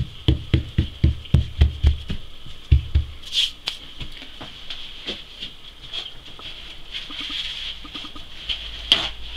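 A palm patting a round of msemen dough flat on a floured wooden board: quick soft thumps about four a second that stop about three seconds in.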